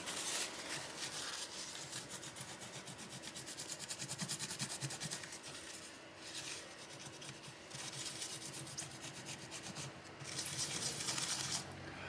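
Toothbrush bristles scrubbing old thermal paste off a bare laptop CPU die wet with isopropyl alcohol: a dry, rasping rub in quick back-and-forth strokes, easing off briefly twice.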